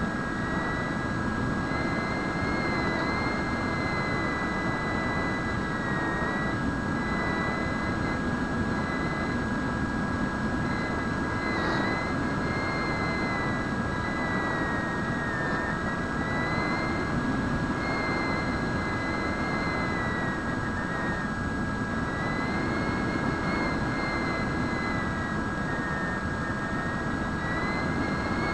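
Onboard sound of a Bixler RC glider's electric motor and pusher propeller in flight: a steady whine that drifts slowly up and down in pitch, over a constant rush of wind and propeller noise.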